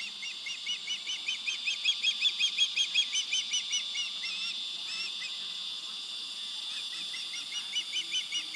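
Osprey fledgling calling: a rapid run of short, high whistled chirps, about four or five a second, growing louder and then fading, with a second shorter run near the end. A steady high drone of insects such as crickets runs underneath.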